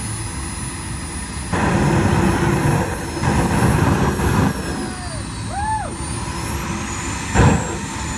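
Small jet turbine of an RC dragster running with a high steady whine that climbs in pitch about six to seven seconds in. Flame bursting from its exhaust adds loud rumbling surges between about 1.5 and 4.5 seconds and a sharp burst near the end.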